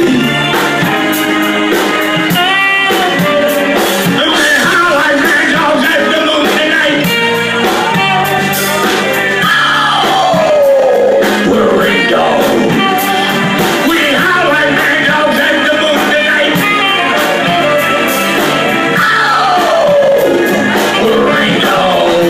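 Live band playing rock-tinged soul music, with guitars, drums and a singing voice. A note swoops down in pitch twice, about ten seconds in and again near the end.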